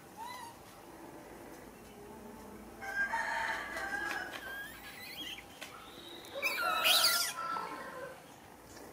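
A rooster crowing twice, once about three seconds in and again, louder, a little past six seconds.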